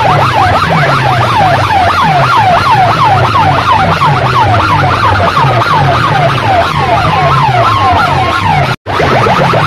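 Towers of horn loudspeakers blasting a siren-like sound effect: a falling wail repeated about three times a second over a pulsing bass beat, very loud. The sound cuts out for an instant near the end, then carries on.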